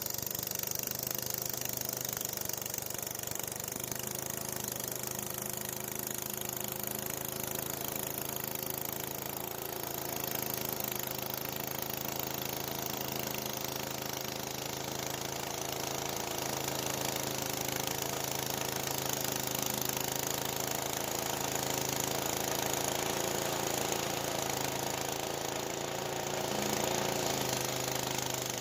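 Small gasoline engine running steadily at an even pitch throughout, with no revving or stops.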